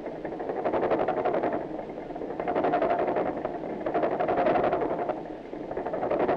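Machine-shop machinery running: a dense mechanical clatter made of rapid, regular ticks that swells and eases about every second and a half, fitting a heavy milling machine cutting steel.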